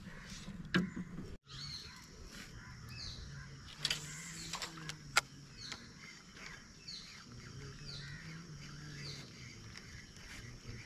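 Birds calling with short, repeated falling chirps, over a faint low hum, with a few sharp clicks.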